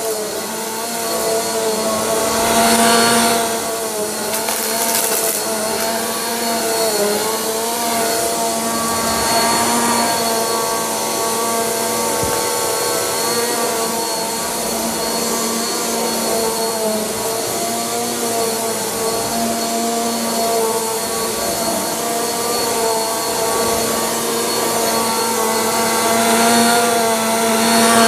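Upright Bissell vacuum cleaner running over carpet: a steady motor hum and whine, with a few brief louder rushes as it sweeps past.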